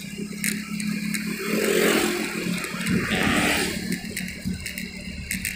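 Motorcycle engine running steadily at riding speed, with road and traffic noise that swells about two seconds in.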